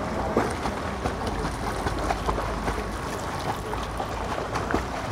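Swimmers splashing in a pool: a steady wash of water noise with many small irregular splashes from kicking legs and arm strokes.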